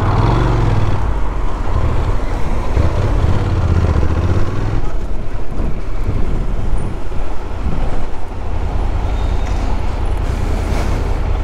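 Honda NC750X motorcycle riding at low city speed: its parallel-twin engine running steadily, under wind and road noise on the rider's microphone.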